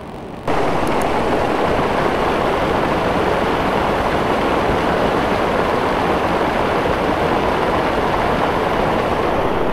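Small waterfall splashing into a stream: a steady rush of falling water close to the microphone that starts abruptly about half a second in.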